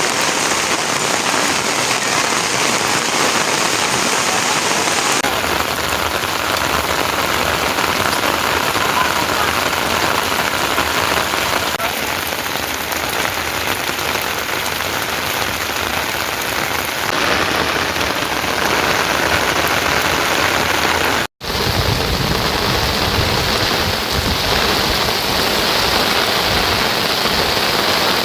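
Heavy rain falling steadily as a dense hiss. It shifts abruptly in character a few times and cuts out for an instant about two-thirds of the way through, with more low rumble after the cut.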